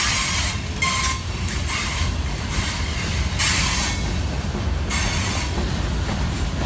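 Freight train cars (covered hoppers and open hoppers) rolling past: a steady low rumble of wheels on rail, with repeated surges of hiss as the cars go by. A brief high squeal comes about a second in.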